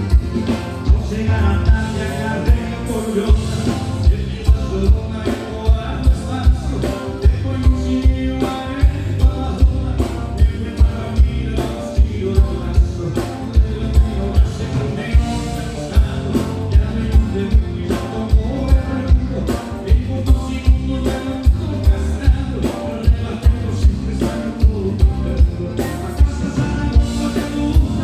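Live band playing gaúcho dance music, loud and full, over a steady drum beat.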